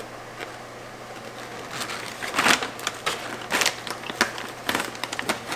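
Crunchy rice crackers being bitten and chewed: irregular crisp crunches starting about two seconds in.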